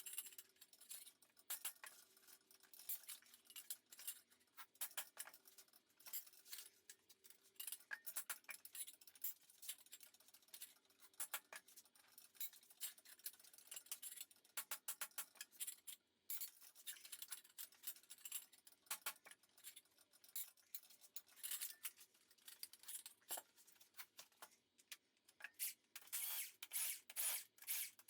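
Faint scattered clicks and light metallic clinks of hand tools and loose engine parts being handled, growing busier near the end.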